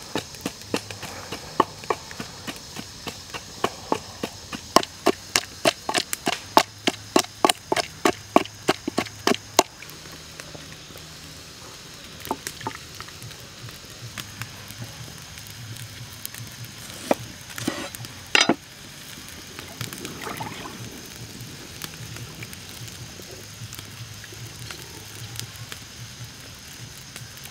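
Wooden pestle pounding in a wooden mortar, crushing chillies: steady knocks about two to three a second, stopping about ten seconds in, followed later by a few scattered knocks.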